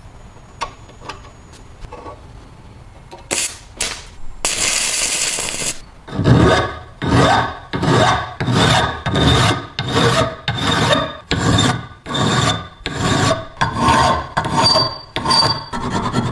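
Hand abrading a part of an old vegetable slicer during its restoration: a run of rhythmic back-and-forth rasping strokes, about three every two seconds, starting about six seconds in. Before them come a few light clicks and a short burst of steady rough noise.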